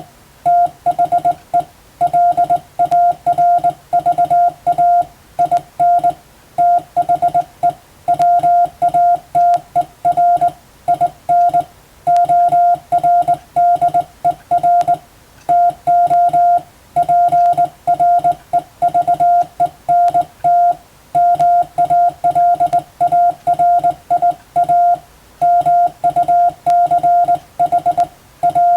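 Morse code (CW) sent as a single steady beep, keyed on and off into rapid dots and dashes, with short pauses between groups.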